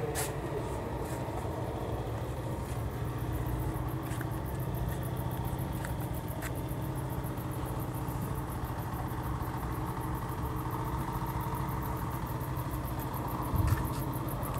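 A motor running steadily at idle, an even low hum with a faint fast ticking above it.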